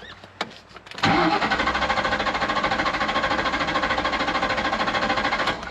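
1998 Ford Mustang's starter cranking the engine steadily for about four and a half seconds without it catching, then stopping abruptly. It is a crank-no-start that the mechanic puts down to the anti-theft system's faulty transceiver.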